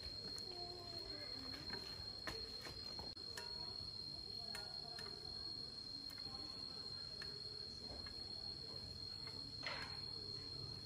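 An insect, cricket-like, singing one steady high-pitched note without a break, with a few scattered sharp knocks and clicks.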